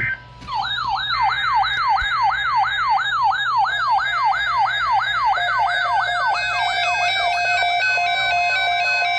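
An electronic siren-like alert tone that warbles rapidly up and down, about four sweeps a second. About six seconds in it changes to a stepped pattern of alternating electronic beeps.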